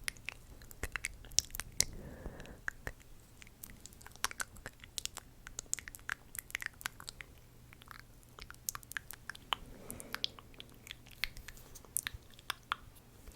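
Close-miked ASMR mouth sounds: a stream of irregular wet clicks and smacks, with a soft breathy sound twice.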